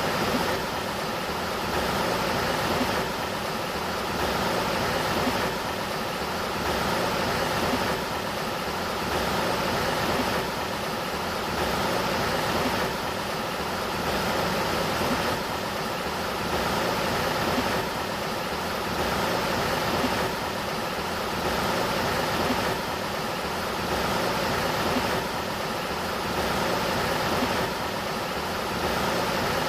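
Steady rushing water of the Sacramento River, an even hiss that swells and eases about every two and a half seconds, with a steady low hum of several tones beneath it.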